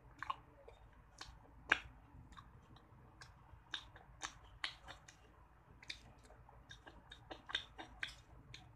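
Close-miked mouth sounds of eating an ice cream bar: irregular wet smacks and clicks of chewing and lips, about two a second.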